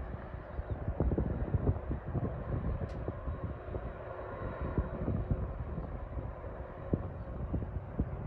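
Jet airliner engines rumbling at a distance, swelling a little in the middle, with wind gusting on the microphone.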